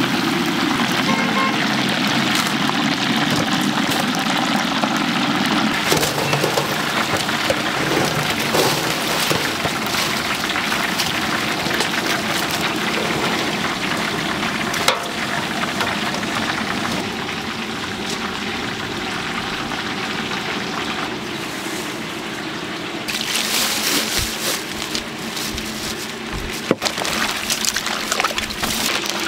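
Chicken deep-frying in oil in a large cauldron: a steady sizzle full of fine crackles. A low hum runs under it and stops about six seconds in, and a couple of sharp knocks stand out.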